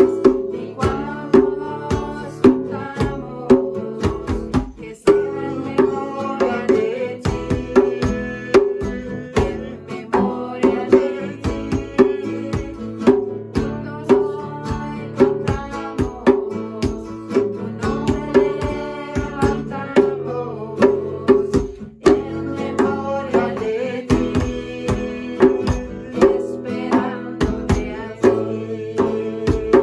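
A djembe played with bare hands in a steady beat, accompanying an acoustic guitar, while a man and a woman sing together.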